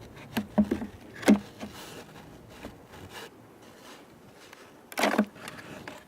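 Several sharp wooden knocks and clunks from beehive frames and boxes being handled, the loudest about a second in, then a short clatter near the end.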